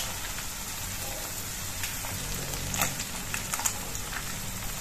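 Tomato and onion mixture sizzling steadily in a frying pan on low flame, with a few light clicks about three seconds in as eggs are cracked over the pan.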